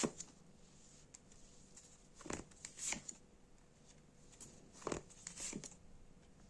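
Tarot cards being handled and laid down on a table: a few faint, short card rustles and taps, scattered with quiet gaps between them.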